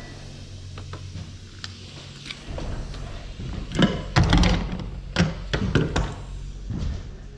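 A run of knocks and thumps, a few light ones early on and a dense, louder cluster in the middle, over a steady low hum.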